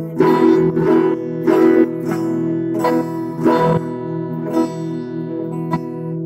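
Sunburst electric guitar strummed chord by chord by a beginner, about seven strums at an uneven pace, each left to ring.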